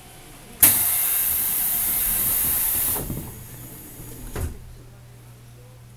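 Sudden loud hiss of compressed air from a JR 373-series electric train's pneumatic equipment, lasting about two and a half seconds, then a short low thump about four seconds in. A faint steady hum runs underneath.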